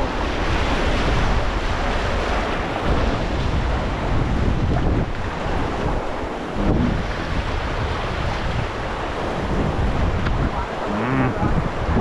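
River water rushing steadily around a raft, with wind buffeting the microphone.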